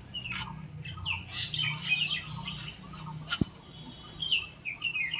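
Small birds chirping and twittering with short falling whistles, and a few sharp clicks, twice standing out clearly, of a boti blade cutting through Malabar spinach seed stems.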